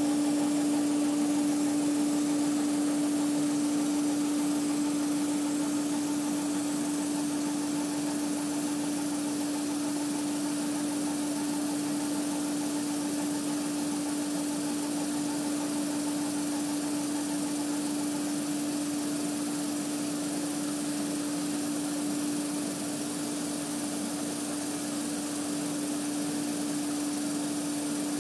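Epilog laser engraver running while raster-etching cardboard: a steady mechanical hum with one constant low tone as the laser head shuttles back and forth over the sheet.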